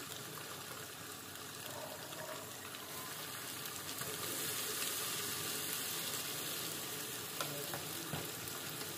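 Hot oil sizzling and bubbling steadily in a steel pot as ghevar batter is poured into it in a thin stream; the frying gets louder about four seconds in. Two light clicks near the end.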